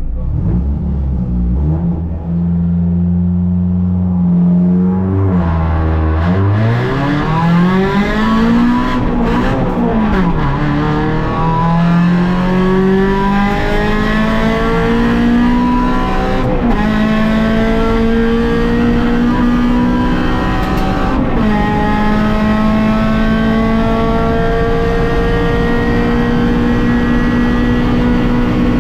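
Rally car engine heard from inside the cockpit: it holds steady revs, then about five seconds in pulls away hard and accelerates up through the gears. The pitch climbs and drops back at each of about four gear changes, then holds high, steady revs near the end.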